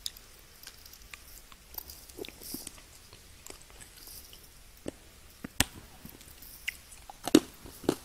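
Close-miked mouth sounds of someone chewing and biting candy: scattered crunches and wet clicks. The sharpest comes a little after halfway, and the loudest comes near the end.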